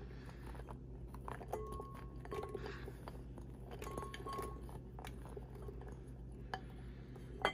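Cubes of cold butter tipped from a glass bowl into a ceramic stand-mixer bowl: faint soft knocks and clicks as they drop, with a few brief ringing clinks of the glass bowl against the mixer bowl, over a low steady hum.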